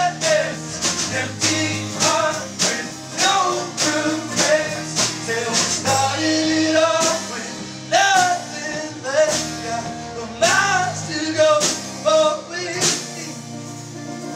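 Folk-punk band playing and singing, with a steady beat. The singing stops near the end and the instruments play on more quietly.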